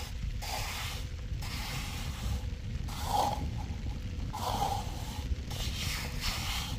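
Steel trowel scraping and smoothing wet cement across a roof slab in repeated strokes, roughly one a second.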